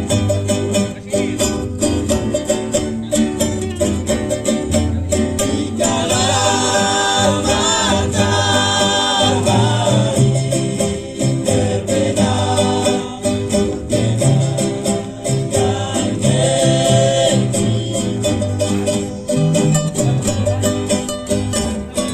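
Acoustic string band playing: fast strummed plucked strings over a bass line, with singing coming in about six seconds in and again briefly later on.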